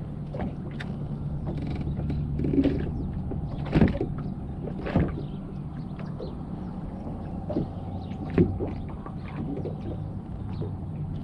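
Small waves slapping against the hull of a bass boat, with scattered clicks and knocks, two of them louder about four and five seconds in, over a steady low hum.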